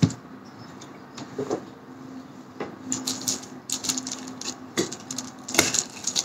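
Eating sounds: a knife and fork clicking and scraping on a plate, with crackles as a crisp snack is broken by hand, heard as a run of sharp irregular clicks over a faint steady hum.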